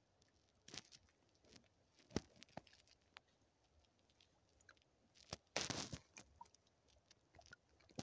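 Faint trickle of a shallow snowmelt stream: scattered small clicks and gurgling blips, with a louder brief crunch about five and a half seconds in.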